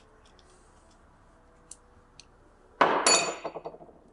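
Small metallic clicks of a driver on the oil pump cover screws, then about three seconds in a loud metal clatter with a bright ring, followed by a run of smaller clinks that die away over about a second, as metal parts come off the engine case and are handled.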